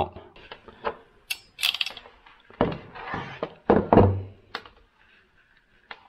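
Scattered knocks, clicks and scrapes of hand tools and wire being handled on a workbench while a red butt connector is crimped onto a battery wire. The heaviest thunk comes about two-thirds of the way through.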